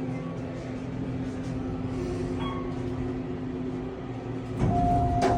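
Otis elevator car in motion: a steady low mechanical hum and rumble. Near the end the rumble grows louder and a single clear tone sounds and holds.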